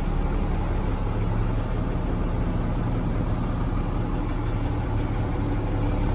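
Heavy truck's diesel engine idling steadily, heard from inside the cab as an even low hum.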